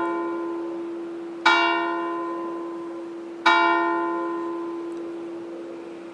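A single church bell tolling: struck about a second and a half in and again two seconds later, each stroke the same note, ringing on and fading slowly between strokes.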